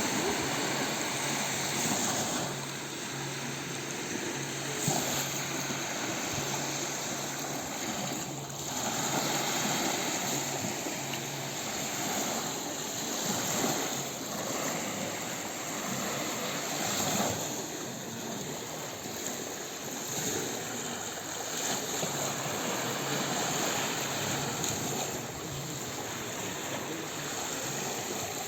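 Gentle sea waves washing onto a beach: a continuous rush of water that swells and eases.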